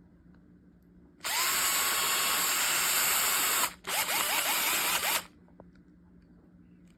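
DEKOPRO 12 V cordless drill-driver motor running in two bursts: one of about two and a half seconds, a brief stop, then a second of just over a second.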